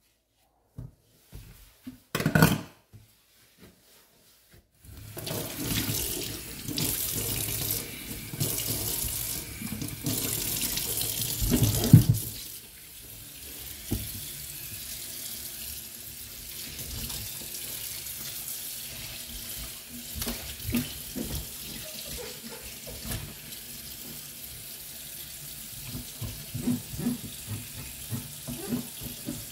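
A sharp clink about two seconds in, then tap water running into a stainless steel kitchen sink. The water is strong for about seven seconds and then lower, with scattered light knocks.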